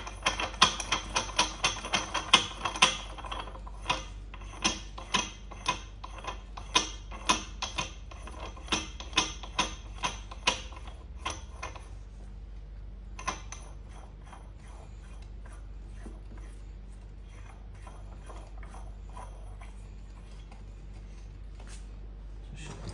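A metal nut spun by hand down the threaded copper stud of a distribution transformer's low-voltage bushing, the threads clicking and rattling quickly at first, then more sparsely, stopping about twelve seconds in. After that only a faint low hum remains.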